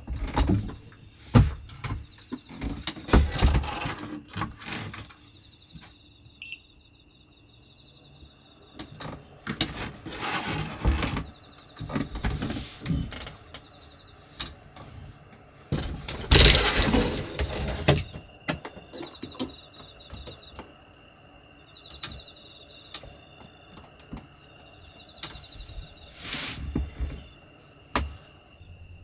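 Things being handled and set down in a small room, with rustling, knocks and clicks in bunches. The loudest come about ten and sixteen seconds in. In the pauses, insects chirp faintly.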